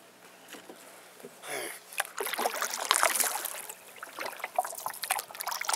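Water splashing and dripping against a small boat, a dense crackling patch about two seconds in, then scattered drips and small splashes.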